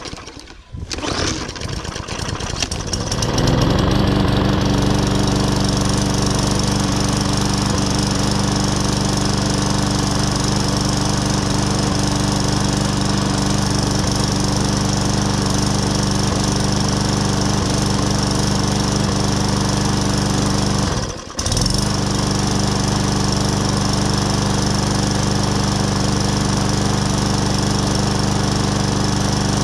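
Briggs & Stratton 450E single-cylinder overhead-valve lawn mower engine pull-started after a carburettor clean. It catches within about a second and rises to a steady speed over the next few seconds, then runs evenly without hunting, with a momentary drop in sound about 21 seconds in.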